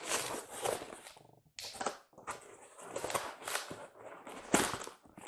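Cardboard shipping box being opened and unpacked by hand: irregular rustling and scraping of cardboard and packing, with a sharp knock about four and a half seconds in.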